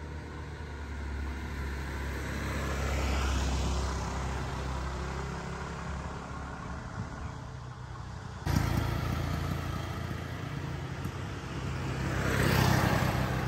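Passing motor vehicles on a road: a steady low engine hum swells about three seconds in. After a sudden cut near the middle, a motor scooter approaches and passes, loudest near the end.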